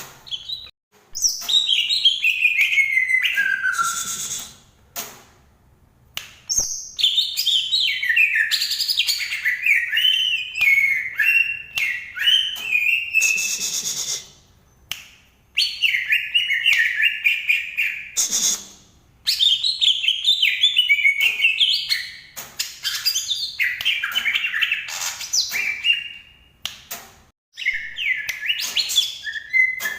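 Cucak ijo (green leafbird) singing in long, varied warbling phrases of quick high chirps and whistles, broken by short pauses every few seconds.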